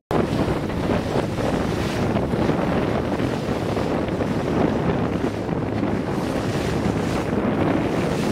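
Steady rumble of a boat under way on choppy sea, with wind buffeting the microphone and water rushing past the hull.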